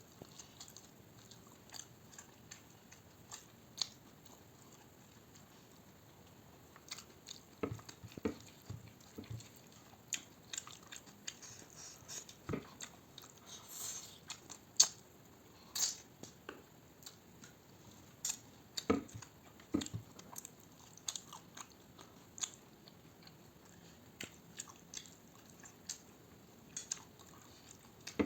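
A person chewing and biting food close to the microphone, with irregular wet mouth clicks and smacks, a few of them sharper and louder.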